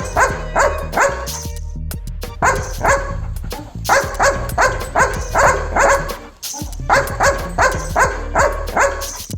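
A dog barking in quick runs of sharp barks, about three a second, with two short breaks, over background music.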